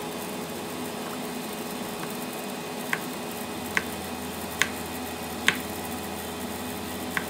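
Kitchen knife slicing through a button mushroom, the blade tapping the plastic chopping board five times in short sharp clicks, over a steady appliance hum.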